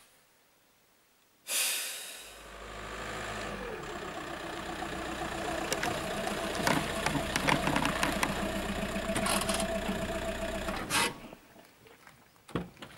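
Volkswagen Bora saloon's engine running as the car drives up and parks, with a dip in pitch as it slows. The engine stops abruptly about two seconds before the end, leaving a few light knocks.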